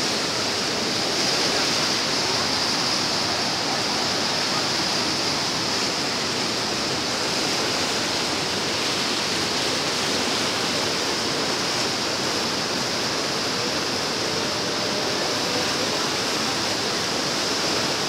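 White water of the Düden River rushing steadily over rocks in fast rapids: a constant, loud, even hiss of water with no breaks.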